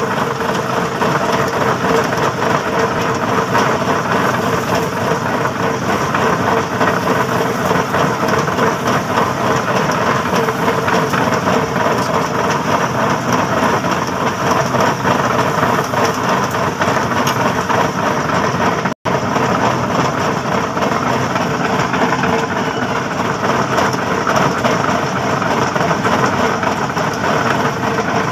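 Concrete pipe spinning machine running: the steel pipe mould turns on its drive wheels with a steady, loud mechanical rattle and a steady hum while wet concrete is fed into it. The sound cuts out for an instant about two-thirds of the way through.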